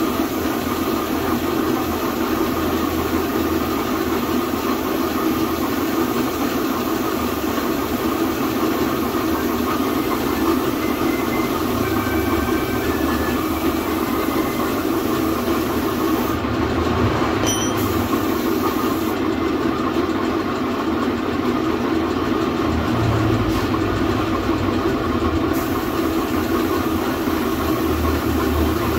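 Air compressor running steadily to feed an air spray gun, with the spray gun hissing as it sprays paint.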